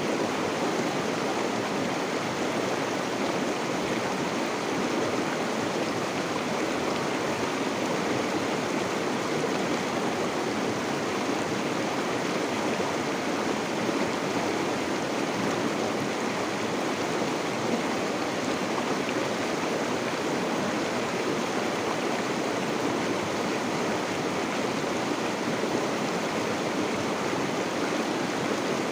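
Stream water flowing, a steady rushing and burbling without change.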